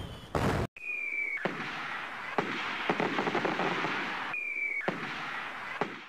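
Fireworks: a short falling whistle about a second in and another about four and a half seconds in, each followed by a long spray of crackles and pops. The crackle fades out at the end.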